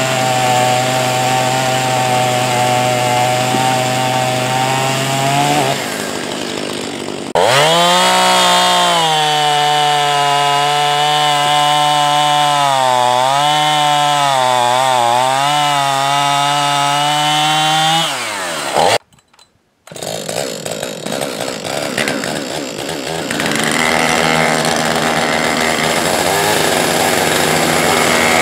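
Two-stroke chainsaws cutting through firewood logs. One saw runs steadily under load, then a louder saw bites in, its pitch wavering as it works through the cut for about ten seconds before winding down. After a brief break a saw keeps running.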